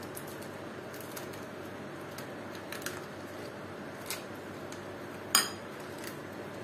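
A metal spoon clinking and scraping against a bowl a few times, with one sharper clink about five seconds in, over a steady background hum.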